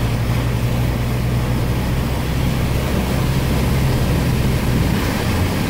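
Truck engine running steadily under an even wash of noise while driving through deep floodwater. The engine note drops a little near the end as it slows.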